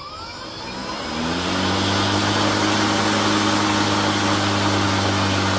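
Kobalt 40V brushless battery lawn mower starting up and running free on pavement. The motor and blade spin up, rising in pitch and loudness over about the first second and a half, then run at a steady speed with a low hum over an even whooshing noise.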